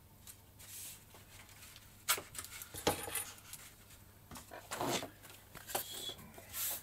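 Objects being handled and set down on a workbench: a few scattered light knocks, clicks and rustles.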